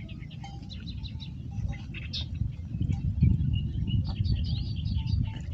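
Many small birds chirping and twittering in quick, high notes, over a steady low rumble.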